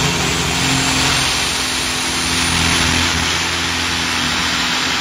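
Light pro stock pulling tractor's diesel engine running hard at high revs, hooked to the weight-transfer sled. It makes a dense, loud roar with a steady engine note underneath that swells in the low end a second or two in.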